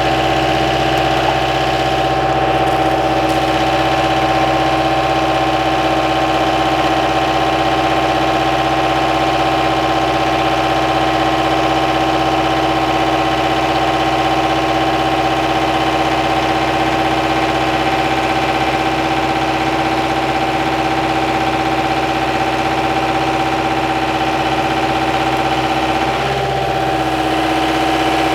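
Skid steer engine running steadily at a constant speed, with a brief shift in its note near the end.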